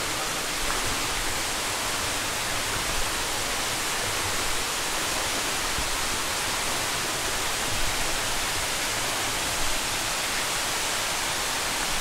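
Waterfall's steady, even rush of falling water.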